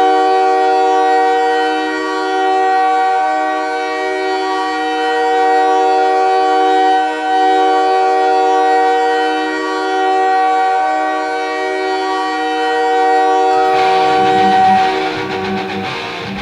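Ice hockey arena goal horn, a multi-tone chord horn like a train horn, blowing one long unbroken blast of about fourteen seconds. Near the end the horn fades under the goal song, rock music with electric guitar.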